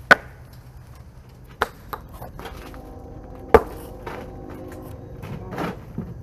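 Riprap stones knocking against other stones as they are dropped and set in place: four sharp clacks, the loudest right at the start and about three and a half seconds in. A steady hum runs for a couple of seconds in the middle.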